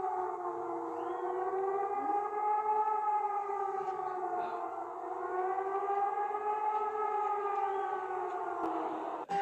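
Civil-defense-style warning siren wailing: a chord of several tones sliding slowly up and down together about every four seconds, cutting off abruptly near the end.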